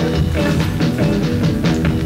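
Rock background music, electric guitar over a drum kit with a steady beat.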